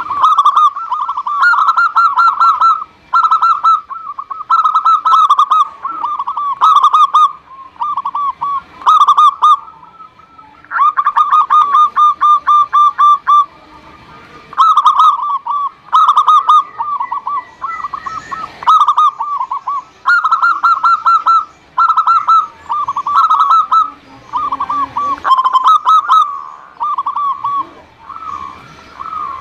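Zebra dove (perkutut) cooing over and over in short phrases of quick stuttering notes, with a longer rolling trill of rapid notes about eleven seconds in.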